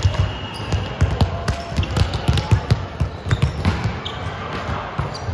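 Basketballs bouncing on an indoor court, with many irregular thuds, short sneaker squeaks and crowd chatter in a large hall.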